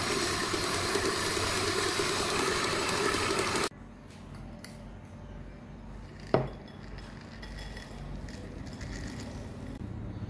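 Electric stand mixer running steadily, its flat beater working flour into dough in a steel bowl, then cutting off suddenly about a third of the way in. After that, chocolate chips are poured from a glass jar into a glass bowl, with one sharp glass clink about two-thirds of the way through.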